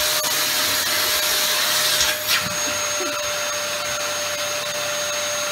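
Canister vacuum cleaner running with a steady whine over a rushing airflow, with a short louder rush a little after two seconds in.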